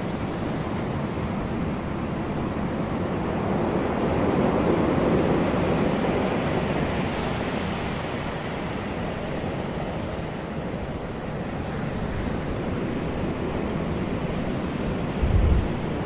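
Ocean surf: waves breaking and washing up onto a sand beach as a continuous rushing, swelling louder about four to six seconds in. A few low thumps sound near the end.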